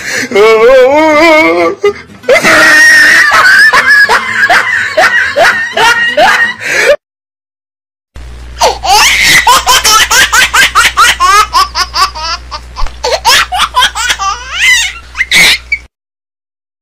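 Loud laughter in rapid pulses, cut off abruptly about seven seconds in. After a second of silence it starts again over a low steady hum, and cuts off again near the end.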